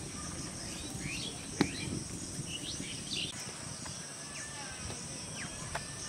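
Rural outdoor ambience: a steady high insect drone with scattered short bird chirps. A sharp click comes about a second and a half in, and a few lighter ticks near the end.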